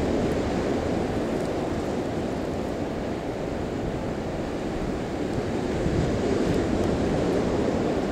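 Steady rushing noise of sea surf on the beach mixed with wind buffeting the microphone, slowly swelling and easing.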